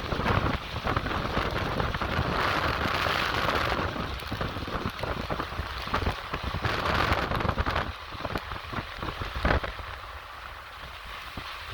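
Rain falling hard in a thunderstorm, with gusty noise, heaviest over the first few seconds and easing after about eight seconds.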